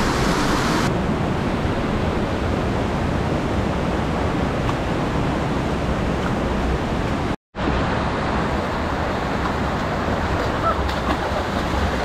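Waterfall: a steady, loud rush of falling water that cuts out for a split second about seven and a half seconds in.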